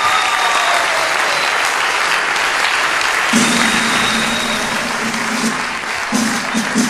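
Audience applauding at the end of a marinera dance number. About halfway through, low sustained music comes in beneath the clapping.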